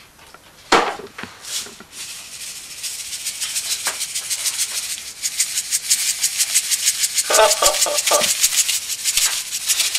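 A small plastic shaker tub of cake decorations being shaken hard over a cake, its contents rattling in a fast, even rhythm of about six shakes a second from about two seconds in. A single sharp knock comes just before the shaking starts.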